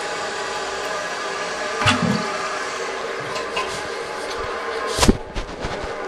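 1994 Kohler Wellworth Lite toilet tank refilling: the fill valve hissing steadily as water runs in and trickles from the refill tube into the overflow tube. A short click comes about two seconds in and a loud knock about five seconds in.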